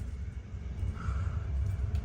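Ceiling fan running, a steady low rumble of motor and moving air with a few faint ticks.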